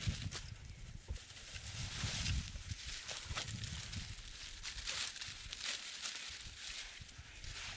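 Wind gusting in a winter forest and buffeting the microphone in low rumbles, with rustling and many small crackles of dry leaves and twigs.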